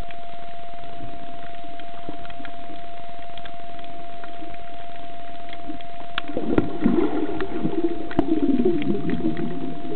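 Underwater ambience picked up by a camera in a waterproof housing: a steady hiss with a constant thin whine. About six seconds in, a run of clicks and low bubbling and gurgling starts.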